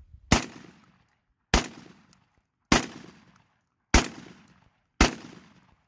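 Five shots from an FD12 bullpup 12-gauge shotgun, fired at an even pace a little over a second apart, each with a short ring-off: the magazine's five loaded shells being emptied.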